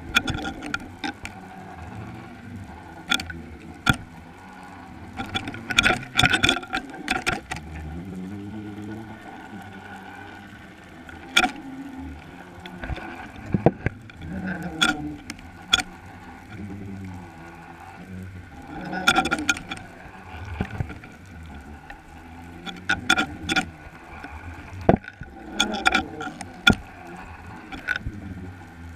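Underwater sound at a bottom-fishing camera rig: sharp, irregular clicks and knocks, some in quick clusters, over a steady hum and wavering low tones.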